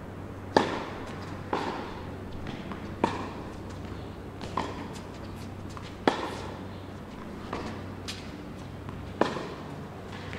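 Tennis rally: a racket strikes the ball about seven times, roughly every one and a half seconds. Each sharp pop echoes briefly in the covered hall, and every other strike is louder.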